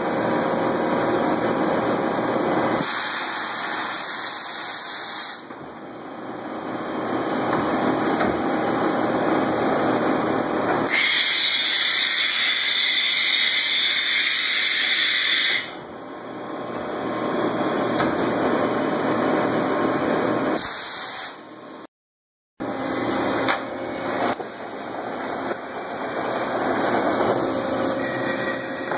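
Matsuura MC-400H horizontal machining center running its cycle: mechanical whirring and clunks as the pallet and spindle move, a loud hiss for about five seconds midway, and flood coolant spraying onto the part near the end.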